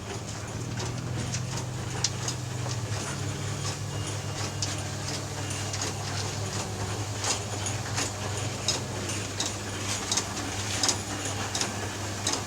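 Steady low machine hum with many irregular clicks and rattles that come thicker in the second half, typical of cracker-making work.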